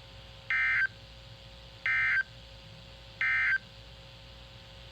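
EAS/SAME end-of-message (EOM) signal on NOAA Weather Radio: three short bursts of buzzy digital data tones, about a second apart, marking the end of the weekly test. A faint steady tone runs between the bursts.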